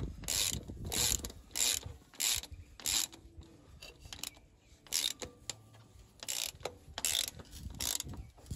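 A ratchet wrench clicks in short rattling bursts on each back-stroke, about nine bursts with a pause partway through, as it works the centre bolt of a diesel truck engine's oil filter housing loose.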